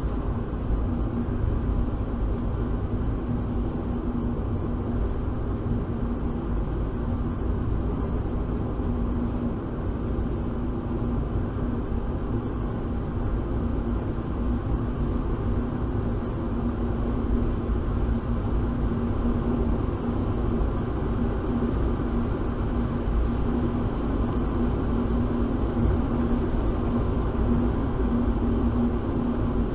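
Car in slow city traffic heard from inside the cabin: a steady low engine and road rumble with a constant drone, and a few faint ticks.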